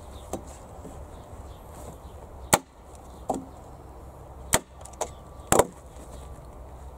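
Hand staple gun firing staples through a plastic liner into the wooden side of a planter box: three sharp, loud snaps a second or two apart, the last one doubled, with a few lighter knocks between.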